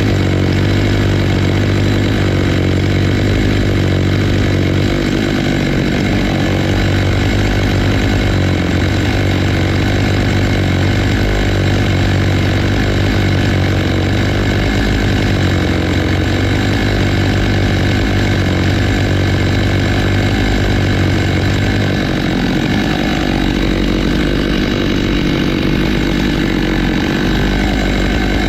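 Stihl MS 661 two-stroke chainsaw running steadily at high revs, ripping lengthwise through a black walnut log in a Logosol F2 Plus chainsaw mill.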